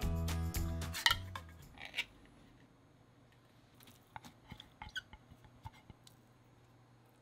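Background music that stops about a second and a half in, after a sharp click. Then near-quiet with a scatter of faint small clicks and taps as tuna is dropped into a stainless-steel bowl of shredded cabbage.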